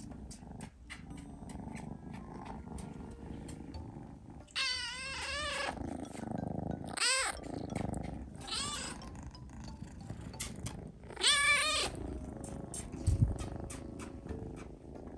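A hungry kitten meowing loudly four times, long wavering cries demanding food, over a steady low purr and scattered small clicks.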